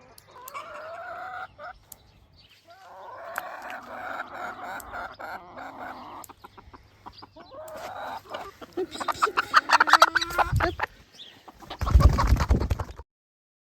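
Chickens clucking and calling in several runs of warbling calls, with scattered clicks. Near the end comes a loud rustling burst, then the sound cuts off suddenly.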